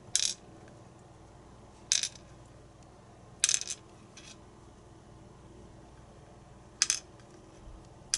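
Small metal lock pins and springs dropping and clinking onto a pin tray: about six sharp, bright clinks spaced irregularly, a couple of them in quick pairs.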